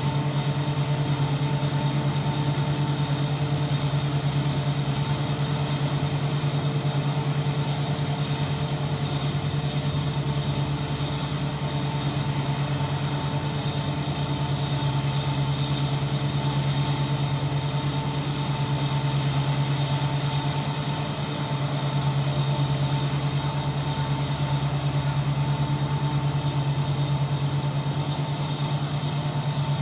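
ISEKI 325 rice harvester's engine running steadily at work, a constant low drone with a steady higher tone above it. The level sags briefly twice.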